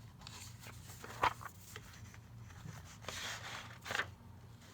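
Paper handling: pages and envelopes of a handmade notebook rustling, with a few short ticks and taps. The sharpest tick comes just over a second in, and a longer rustle comes about three seconds in.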